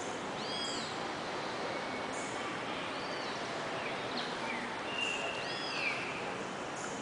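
A bird repeats a short arched chirp about every two and a half seconds over a steady background hiss of ambient noise.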